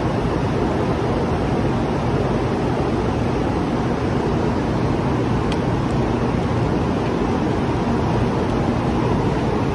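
Steady rushing air noise with a faint low hum from a Taiwan High Speed Rail train standing at an underground platform before departure, with one light click about five and a half seconds in.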